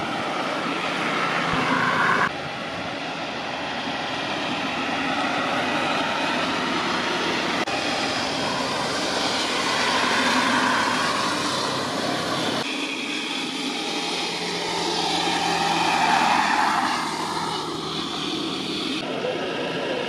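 Jet airliner engines running at a distance: a steady rushing noise whose pitch bands slowly sweep up and down. It changes abruptly a few times.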